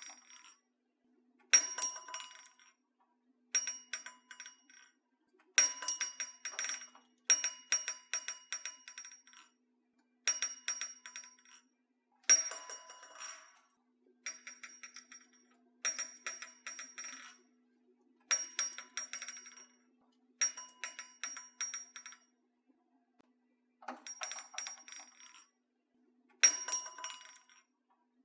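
Doorbell of small jingling bells, jangled in short bursts about every two seconds, about a dozen times, each burst ringing out with several high bell tones before dying away.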